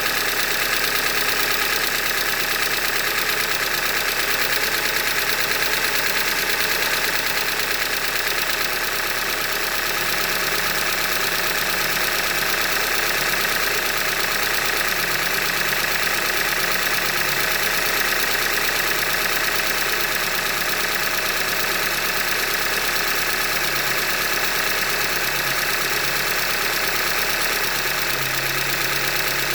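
2015 Hyundai Elantra Limited's engine idling steadily with a constant rapid knock from inside, the sign of a failed short block.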